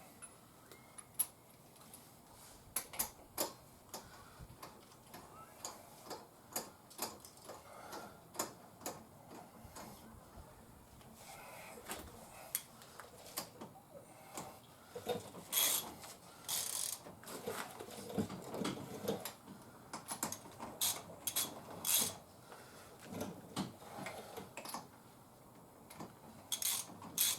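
Irregular sharp metallic clicks and ticks from hand-tool work on the UTV, busier around the middle.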